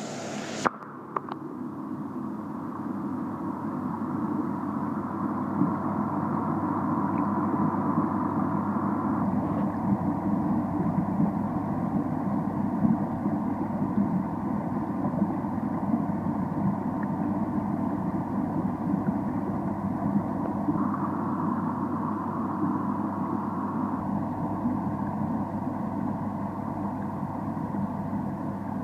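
Steady mechanical hum over a faint rushing noise, with a sharp click about a second in where the sound changes abruptly.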